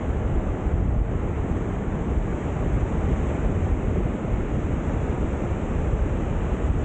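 Sea surf washing onto a beach as a steady rush of noise, with wind buffeting the microphone and adding a low rumble.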